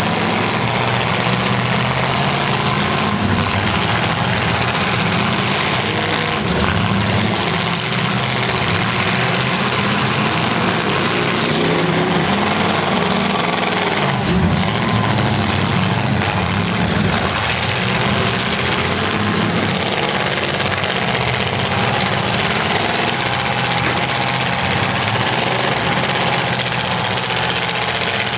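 Several demolition derby cars' engines running and revving together: a loud, steady engine din with no let-up.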